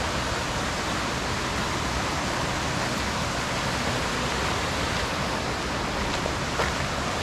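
Mountain stream rushing with a steady, even noise of running water.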